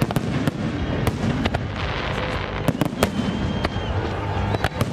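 A fireworks display: aerial shells bursting in a dense, irregular volley of about a dozen sharp bangs over a continuous low rumble. A brief thin high whistle sounds about three seconds in.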